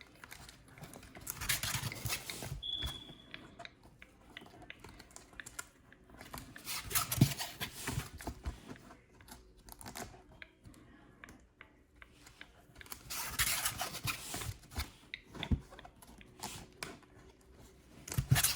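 Plastic binder pages being turned and handled, three rustling page flips with small clicks between them.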